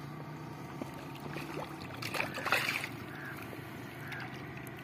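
A hooked carp splashing at the water's surface near the bank, with one short loud burst of splashing a little past two seconds in. A steady low motor hum runs underneath.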